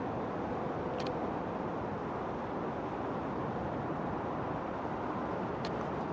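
Steady outdoor background noise, an even dense rumble, with a few faint sharp clicks about a second in and again near the end.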